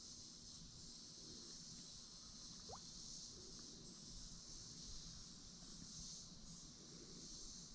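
Faint, steady high-pitched insect chorus of evening crickets, with one short rising whistle a little under three seconds in.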